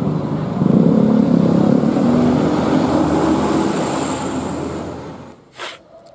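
Motor vehicle engine running close by, with a steady pitched hum over road noise, fading away about five seconds in; a brief click follows near the end.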